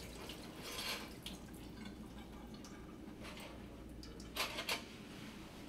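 Scattered water drips in a stainless steel sink, with a couple of light metal clinks about four and a half seconds in as a steel instrument cassette is handled.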